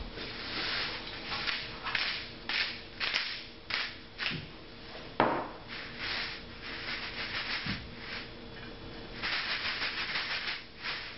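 A sea-salt canister being shaken over a glass bowl of sliced sweet potatoes: repeated short rattling rasps of salt grains, in quick runs near the end, with one sharp click about five seconds in.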